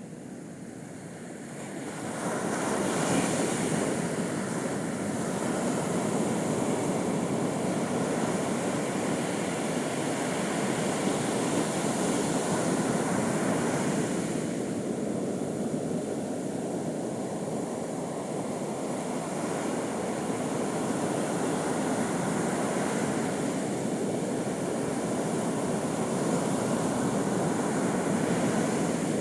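Ocean surf: waves breaking and washing on a beach in a continuous roar, swelling about two seconds in and again about halfway through as new waves break.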